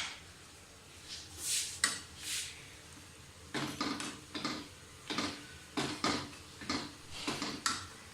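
A spoon stirring and scraping spiced curry masala around a cooking pot: a few soft swishes, then about nine short scrapes at a little under two a second.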